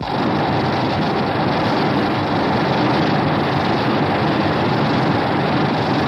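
A loud, steady rushing rumble with no clear pitch, starting abruptly and holding level throughout.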